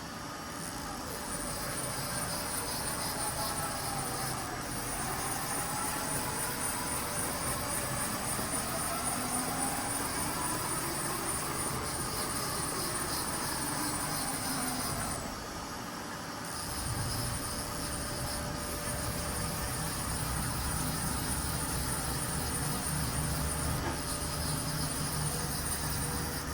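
Hurco VMX-42Di CNC vertical machining center running under power: its motors whine up and down in pitch as the machine moves, over a steady high whine. About two-thirds of the way through the sound briefly drops, then returns with a steady low hum added.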